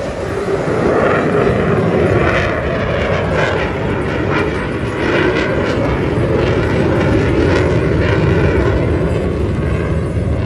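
Fighter jet flying past, its jet engine noise loud and steady, swelling about a second in.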